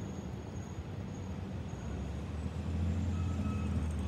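2003 New Flyer C40LFR CNG transit bus driving by, its natural-gas engine running with a low steady hum that grows louder about two and a half seconds in as the bus draws near.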